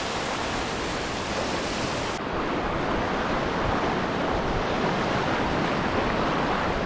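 Small breaking waves washing in the shallow surf, a steady hiss of water with wind noise on the microphone.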